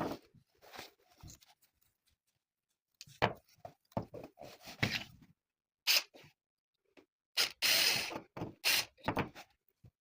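Hands handling parts and packaging during a refrigerator fan motor swap: irregular rustling, scraping and clicks, with a silent gap early on.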